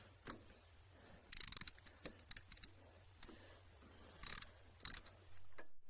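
Light metallic clicks and clinks of hand tools and small metal parts being handled during repair work, in scattered groups with a quick rattle of clicks about a second and a half in.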